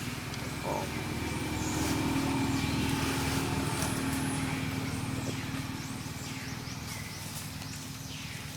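A motor vehicle engine running steadily, growing louder over the first few seconds and then fading away, with high, downward-sweeping chirping calls over it.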